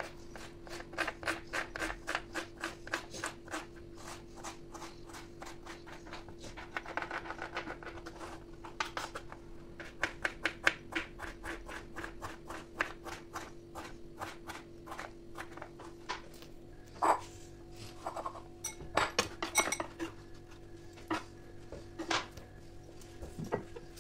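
Kitchen knife chopping on a plastic cutting board in quick, even strokes, about three to four a second. In the last third the chopping gives way to a few scattered, louder knocks.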